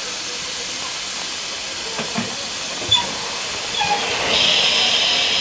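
Steam hissing steadily from BR Standard Class 4 tank locomotive 80080, with a few short metallic clicks two to three seconds in. A little after four seconds the hiss grows louder and brighter.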